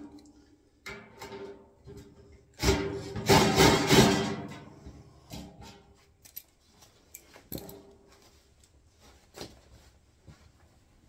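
Metal tools knocking and clattering against a steel wheelbarrow tray, which rings with the same few steady tones at each hit. The loudest clatter comes about three seconds in, followed by a few lighter knocks and handling noises.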